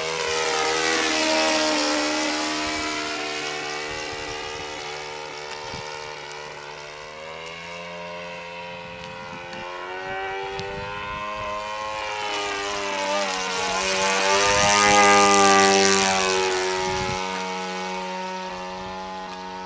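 Saito 14 cc four-stroke engine of an RC SE.5A biplane model running at steady throttle in flight, its propeller note swelling and dropping in pitch as the plane passes twice: once about a second in, and louder around fifteen seconds in.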